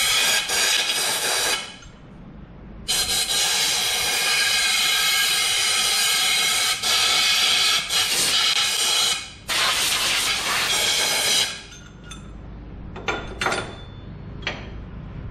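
Compressed-air blow gun hissing in long blasts, then a few short puffs near the end, blowing leftover blast media out of the cleaned tractor top-link parts.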